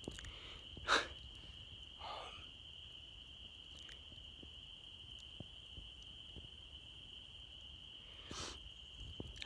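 Faint, steady high-pitched chorus of distant spring peepers, with a sharp click about a second in and another near the end.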